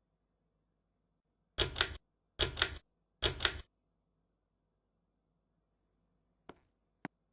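Three quick rattling clicks a little under a second apart, then two faint single clicks near the end: a ceiling fan's pull-chain switch being pulled and released.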